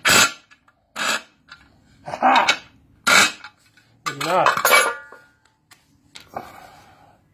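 About six separate metallic clinks and knocks as steel mower parts and tools are handled: the blade disc, bolts and impact-wrench sockets set down and picked up on concrete.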